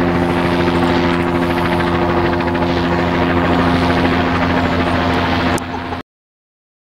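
Helicopter hovering, its rotor chopping rapidly and evenly over a steady engine hum; the sound cuts off suddenly about six seconds in.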